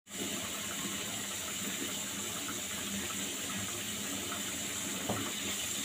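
Potato chunks frying in hot oil: a steady, even sizzle.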